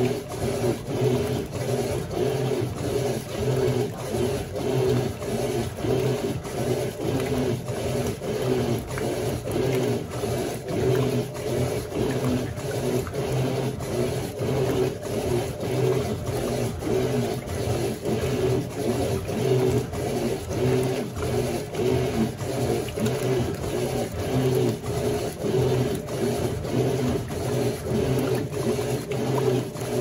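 Electrolux Turbo Flex LQ11 top-load washing machine agitating a full tub: the motor hums and the agitator churns the laundry back and forth in a steady, repeating rhythm.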